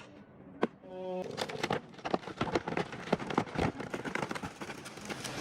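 Wood cracking and branches snapping as a felled tree comes down. There are two sharp cracks in the first second, then a dense, irregular run of snaps and crackles.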